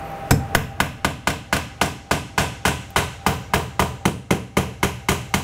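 Claw hammer driving a nail into wooden chair rail molding with a rapid, even run of light taps, about four a second.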